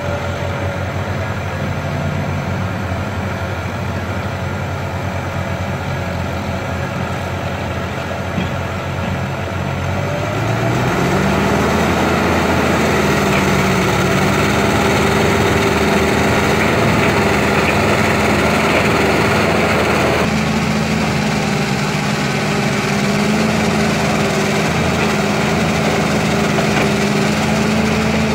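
Heavy diesel engine of earthmoving machinery running steadily at low speed, then revving up about ten seconds in and holding at a higher, louder pitch.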